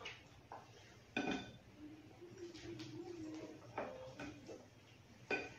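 Tableware clinking sharply twice, about a second in and again near the end, with quieter handling and eating noises between.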